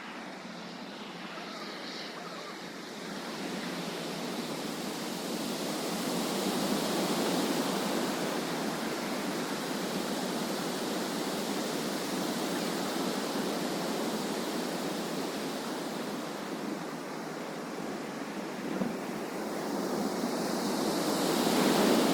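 Rushing whoosh of the wings of a huge flock of Baikal teal flying over, a steady surf-like noise that swells a few seconds in and again near the end.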